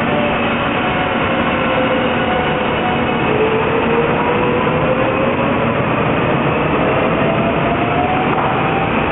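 300 Series Shinkansen bullet train pulling out and passing close by: a steady rush of wheel and running noise, with a whine that climbs slowly in pitch as the train gathers speed.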